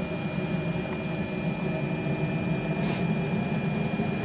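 JetCat PHT3-XL model helicopter turbine in its automatic start-up sequence, running with a steady hum and a constant high whine.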